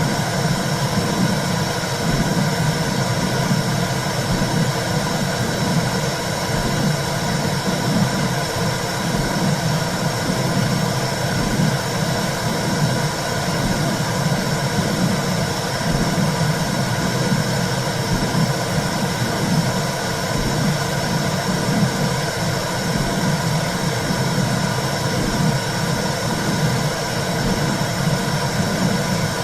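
Womb sound for soothing a baby: a steady low whooshing rumble that swells and ebbs unevenly, with a constant hiss above it.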